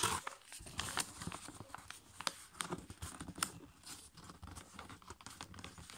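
Sheet of A5 copy paper rustling and crackling as it is folded and its creases are pressed down by fingers, with many small irregular clicks.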